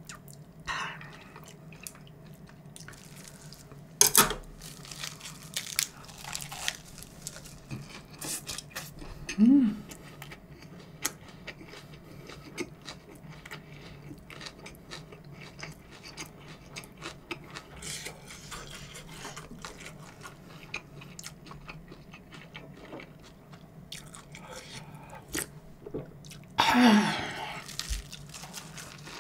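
Close-up eating sounds: chewing and crunching of a lettuce wrap with spicy pork and rice, with chopsticks clicking on the dishes and one sharp click about four seconds in. Two short hums of enjoyment, one about a third of the way through and one near the end.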